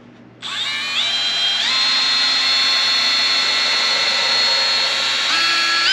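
Milwaukee M12 cordless hammer drill running as it bores a pilot hole in a wooden frame piece. The motor whine starts about half a second in and climbs in pitch in a few steps, then holds steady. It dips briefly near the end before speeding up again.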